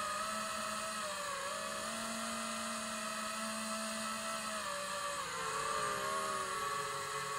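FPV quadcopter's motors and propellers whining steadily. The pitch dips briefly and drops about five seconds in as the throttle changes.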